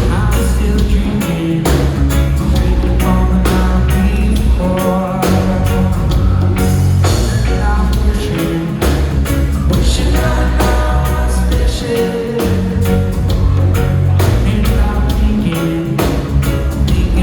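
A reggae band playing live: a heavy bass line and steady drums under a singing voice.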